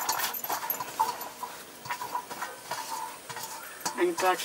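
Chopped wild taro greens being swept by hand off a steel plate into an aluminium pot: the greens rustle and scrape across the metal, with many small clicks of metal.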